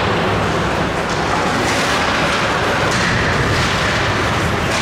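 Ice hockey game noise in the rink: a steady, loud low rumble with a few light knocks.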